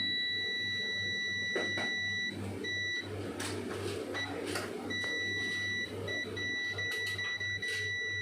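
Multimeter continuity buzzer sounding a steady high beep, cutting out briefly several times as the probe shifts: the sign of a dead short to ground on the laptop motherboard's 19 V line. A faint low hum pulses underneath.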